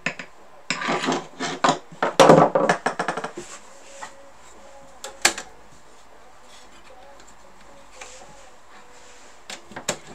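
Metal parts and tools clattering and knocking as a typewriter is worked on by hand: a burst of rattles and knocks in the first few seconds, a single sharp click a little after the middle, then a few light clicks near the end.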